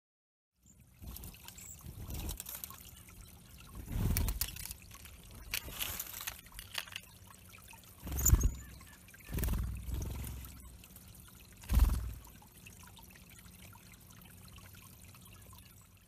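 Water trickling steadily into a shallow rocky bird pond, with cedar waxwings splashing as they bathe, loudest three times about 4, 8 and 12 seconds in. A few thin, very high cedar waxwing calls come from birds flying around.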